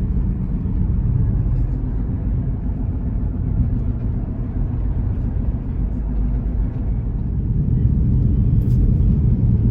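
Steady loud low rumble, growing a little louder near the end.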